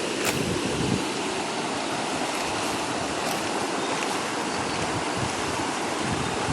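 Fast-flowing river water rushing steadily, swollen by water let out of an upstream dam. Two short clicks stand out, near the start and about three seconds in.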